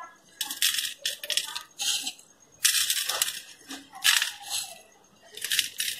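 Crispy sev (fried gram-flour noodles) sprinkled by hand over the pakodas, making several short crisp rustling, crunching bursts with pauses between them.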